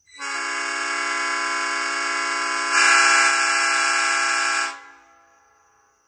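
Nathan New Cast P5 five-chime locomotive air horn (a 2011 casting) blowing one long blast of about four and a half seconds, a steady chord of several notes. It gets louder a little past halfway, then cuts off and trails away over about a second.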